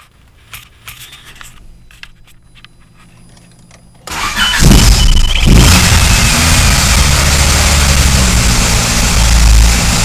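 A few faint clicks, then about four seconds in a vehicle engine is started: a brief crank, it catches and runs loud.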